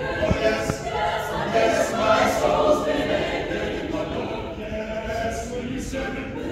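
Mixed choir of men and women singing, with sustained notes and no break.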